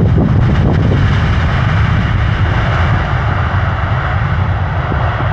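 Jet engines of a Boeing 777-300ER (GE90 turbofans) on its landing roll-out: a loud, steady rush that eases off a little toward the end. Wind buffets the microphone in about the first second.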